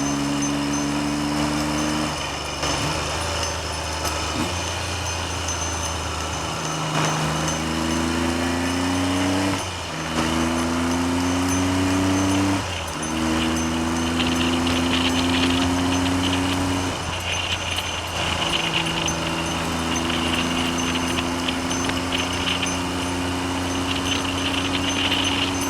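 Triumph Trident three-cylinder motorcycle engine pulling along the road. Its note climbs and then drops sharply at several gear changes, under a steady rush of wind noise on the microphone.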